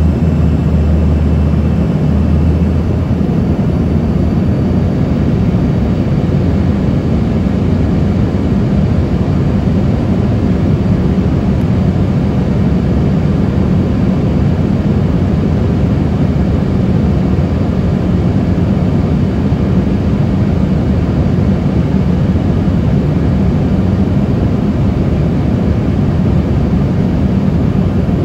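Steady airliner cabin noise: the constant drone of the engines and rushing air, heavy in the low end, heard from a window seat in flight. A deeper hum beneath it fades out about three seconds in.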